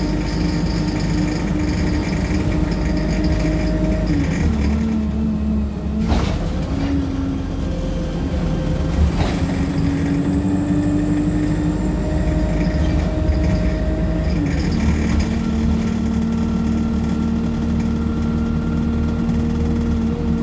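Wright StreetLite single-deck bus heard from inside the saloon while driving: a steady engine and drivetrain rumble whose pitch steps down and up several times as it shifts and changes speed. There is a sharp knock about six seconds in and another about nine seconds in.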